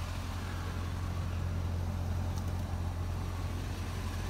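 2006 Corvette's LS2 6.0-litre V8 idling steadily, a low even hum.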